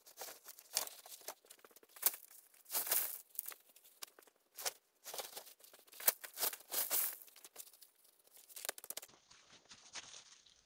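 Irregular rustling and crinkling of woven plastic sacking, with a dozen or so sharper crackles, as a sack is handled and carried; it dies down near the end.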